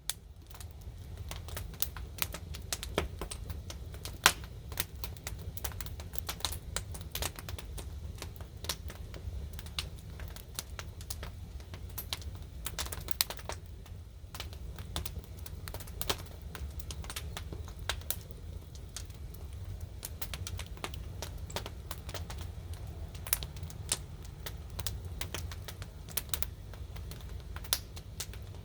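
Burning wood fire crackling and popping in irregular sharp snaps, one louder pop about four seconds in, over a low steady rumble.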